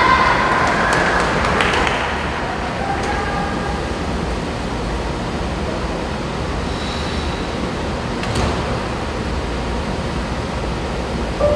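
Applause and scattered cheers dying away about two seconds in, then the steady low rumble and hiss of an ice rink's room noise, with one faint click near the end.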